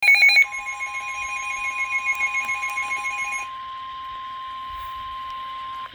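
NOAA Weather Radio warning alarm tone: a single steady 1050 Hz tone held for about five and a half seconds, cutting off abruptly just before the end. It opens with a brief loud burst, and a separate pulsing beep sounds over it for the first three and a half seconds.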